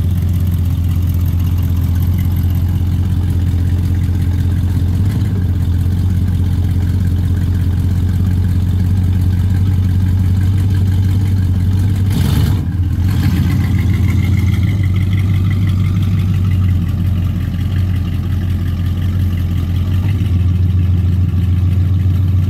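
1969 Dodge Charger R/T's V8 idling steadily with a deep, even rumble. A brief noise cuts across it about halfway through.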